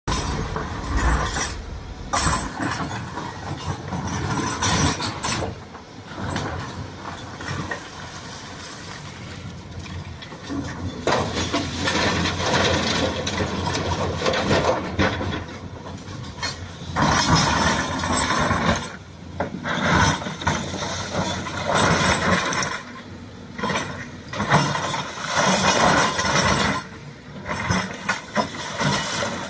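Shantui excavator working: its diesel engine runs while metal parts clank and rattle, the noise swelling and dropping every few seconds.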